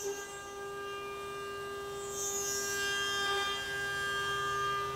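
CNC milling machine cutting under flood coolant: a steady, high machining whine from the spindle and end mill, with a burst of hiss about two seconds in.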